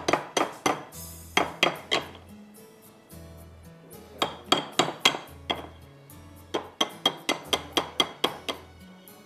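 Metal beaters of an electric hand mixer knocked against the rim of a glass mixing bowl in several quick runs of clinks, shaking off batter once the motor is off. Background music plays underneath.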